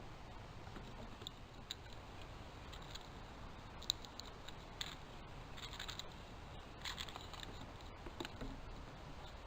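Irregular scratching, scrabbling and sharp little clicks close to the camera's microphone: squirrels or jays moving about and picking at food on the picnic table.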